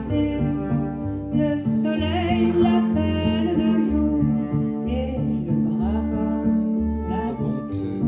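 Live acoustic music: a bowed cello playing sustained notes over a repeating low pulse, in an instrumental passage of a slow song.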